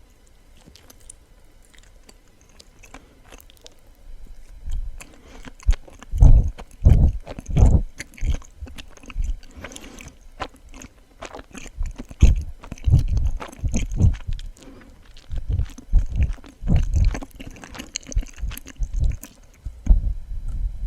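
Close-miked chewing of suama, a soft, chewy Japanese rice-flour sweet, in irregular clusters of mouthfuls starting about four seconds in, after a stretch of faint mouth clicks.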